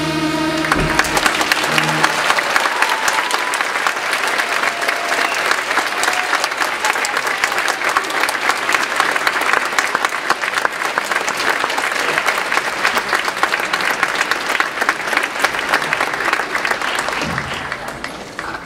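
A children's choir's last sung chord ends about a second in, and a large audience breaks into applause. The clapping is loud and sustained, then dies away near the end.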